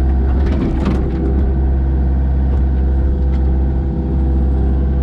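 Kobelco SK55SRX-6E mini excavator's diesel engine running steadily at working speed, with a few short clanks in the first second.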